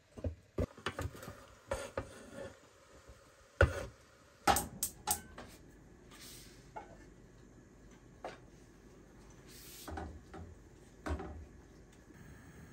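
Kitchen clatter: a string of sharp knocks and clinks of pots, pans and utensils being handled, loudest about four to five seconds in, then sparser.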